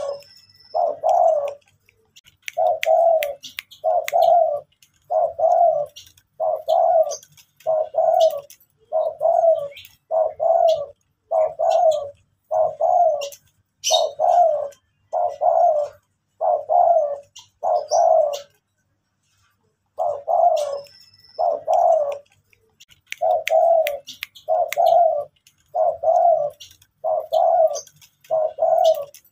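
Spotted dove cooing over and over, a steady run of short low coos about one a second, with one short break about two-thirds of the way through.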